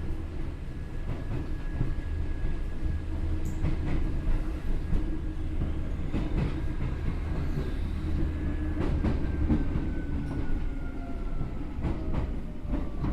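Seibu N2000 series field-chopper electric train running, heard from inside the car: a steady low rumble with wheel clicks over rail joints. In the second half a thin whine glides down in pitch as the train slows on its approach to the terminus.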